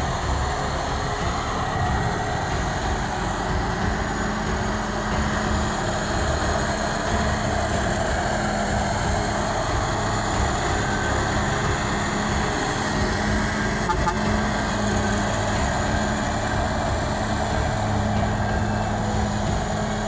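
Heavy lorry's diesel engine running steadily under load as the truck hauls a full load of rubber-wood logs up a dirt track.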